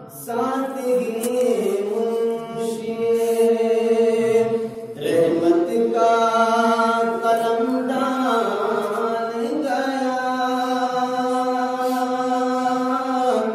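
A man's voice chanting unaccompanied into a microphone in long, held melodic phrases, with a short break for breath about five seconds in. This is devotional recitation.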